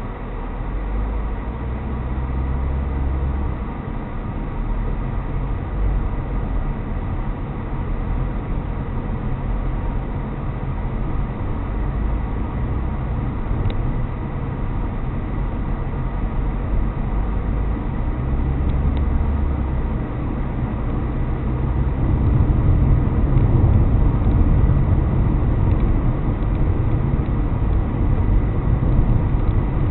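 A car on the move: steady engine and road rumble, growing louder about three-quarters of the way through.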